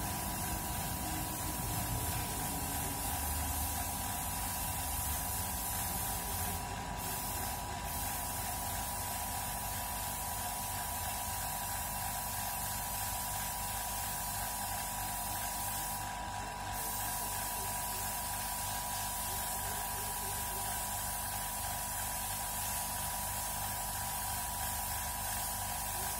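Air spray gun hissing as it sprays paint, over an air compressor running with a fast mechanical clatter and a steady whine. The hiss cuts out briefly twice about a quarter of the way in and once a little past the middle as the trigger is let go.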